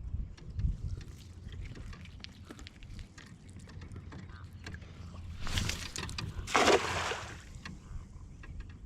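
Sounds of a kayak on the water: a low rumble and small knocks and clicks. About five and a half seconds in comes a short rush of water, then a louder splash a second later.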